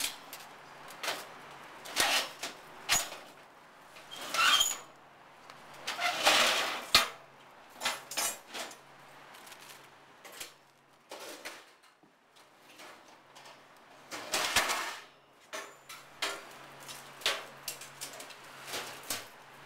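Metal wire racks of boxed school lunches rattling and knocking as they are moved about on a delivery truck's bed, with scattered sharp clatters and a few longer noisy stretches.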